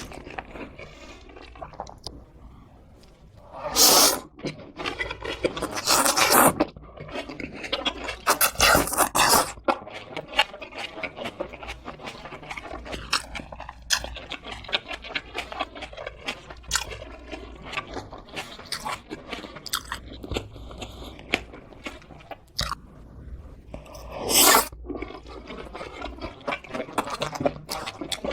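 Close-miked chewing and crunching of crispy fried chicken, with many small mouth clicks and a few loud crunchy bites, the longest about nine seconds in and another near the end.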